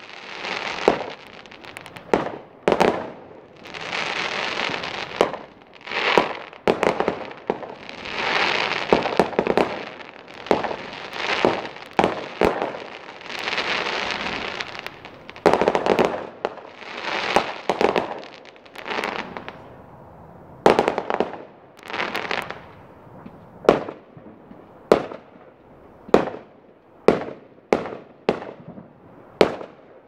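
Aerial fireworks bursting overhead: a busy run of bangs mixed with longer crackling stretches, thinning in the last third to separate sharp bangs about one a second.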